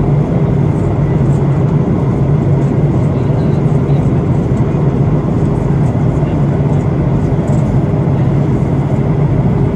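Steady cabin noise inside a Boeing 737-800 airliner: the low drone of its CFM56-7B turbofan engines and rushing airflow, heard from a seat over the wing while descending through cloud on approach.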